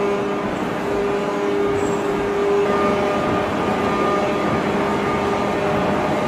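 Steady drone of heavy forge-shop machinery, with a hum of several steady tones and no hammer or press blows.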